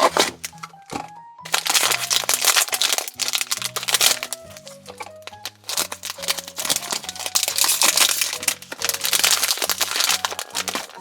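Plastic packaging crinkling and crackling continuously as a surprise plush toy's bag is torn open and handled, over cheerful background music with a steady bass line.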